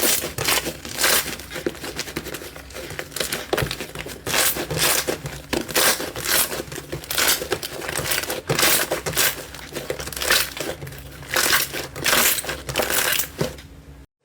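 Slime being squeezed and pressed by hand, making repeated noisy squishes about every half second. They cut off suddenly just before the end.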